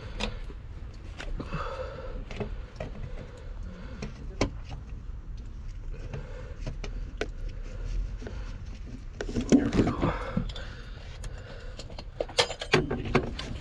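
Screws and a small cover being fastened by hand on a small box at the foot of a metal service mast: scattered light clicks and small metallic rattles, busiest about nine to ten seconds in and again near the end.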